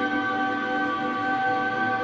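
Instrumental ambient post-rock music: a slow passage of several sustained notes layered and held steadily, without drums, with one higher note joining near the start.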